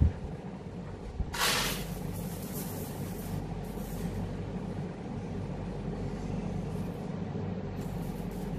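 Steady low hum of room background noise, with a brief rustling burst about a second and a half in.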